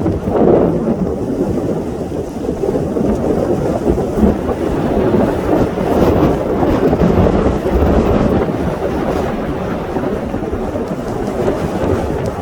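Steady low rushing rumble of wind buffeting the microphone.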